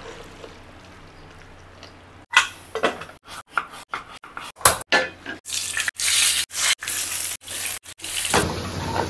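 A few knife strokes through raw potatoes on a wooden chopping board, then hot oil sizzling as small whole potatoes fry in a flat pan, in short pieces that stop abruptly.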